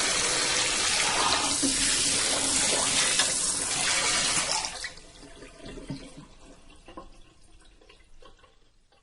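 Kitchen sink sprayer hosing water over dishes: a steady, loud hiss of spray that stops about halfway through. Faint scattered clicks follow until the end.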